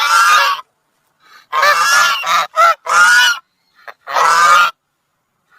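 Goose honking: about six harsh, loud honks, with a quick run of short ones in the middle.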